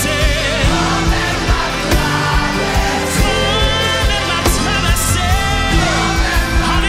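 A worship team of several voices singing a gospel song in Haitian Creole into microphones, backed by a band with a steady beat and sustained low bass notes.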